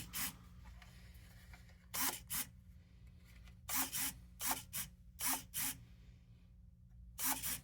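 Short rasping bursts, about a dozen in irregular clusters, as the HPI Baja's servos and linkage are jerked back and forth by remote control, over a faint steady hum. The jerky, stop-start movement is the glitching the owner puts down to a weak battery pack.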